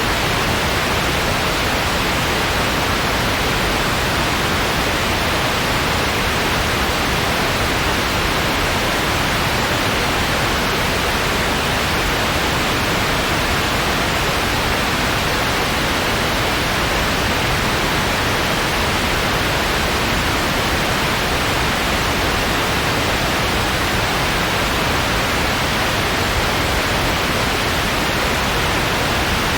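Steady white noise: an even, unchanging hiss with no rhythm or events.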